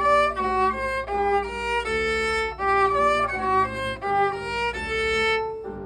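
Violin bowed in a slow run of about a dozen separate notes, each held briefly before the next, stopping shortly before the end.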